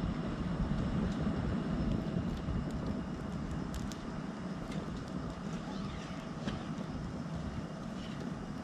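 Small wood fire burning in a portable fire stand, with a few faint crackles over a steady low rumble.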